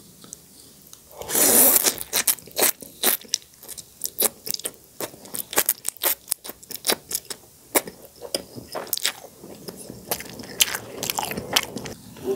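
Close-miked eating of instant noodle soup: a loud slurp of noodles about a second in, then steady wet chewing and lip-smacking, with many quick sharp clicks of the mouth.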